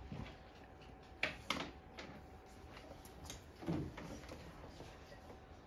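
Quiet classroom room tone with a faint steady hum, two small knocks a little over a second in, and a short low sound near four seconds.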